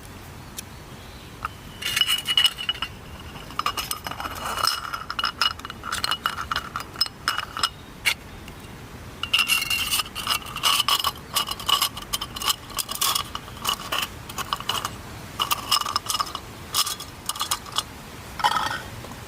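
Small hard coffee-kit items clinking and scraping against one another in irregular flurries, with a ringing metallic tone.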